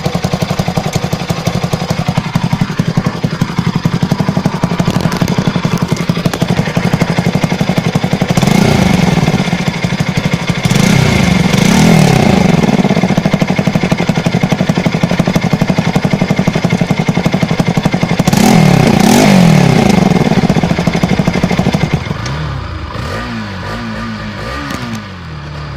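Bajaj Pulsar 200 NS single-cylinder engine idling steadily, then revved in quick blips twice, with the pitch rising and falling each time. Near the end it drops quieter, with several short rises in pitch.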